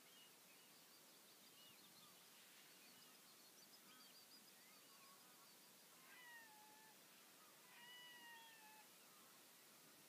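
Faint birdsong: scattered short chirps and a quick run of high notes in the first half, then two longer falling calls about 6 and 8 seconds in.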